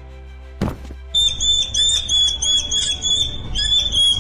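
A rat pinned by a cat gives a high-pitched squeal, held on one note with quick wavering chirps riding above it, starting about a second in. A single knock comes just before it.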